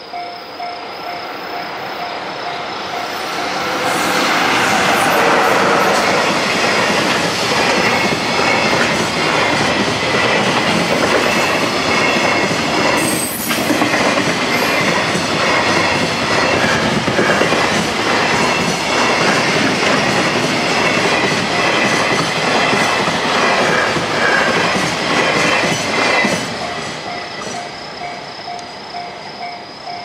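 A freight train hauled by an EF66-100 electric locomotive passing over a level crossing, with the crossing's warning bell ringing in a steady repeating pattern. The train noise builds over the first few seconds, then the wagons rumble and clatter past for about twenty seconds. The bell comes through clearly again as the train clears.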